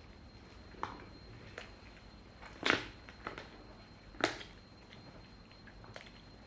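Close-miked eating: a person chewing and biting food, with a handful of sharp, separate mouth clicks and crunches, the loudest about three seconds in and another just after four seconds.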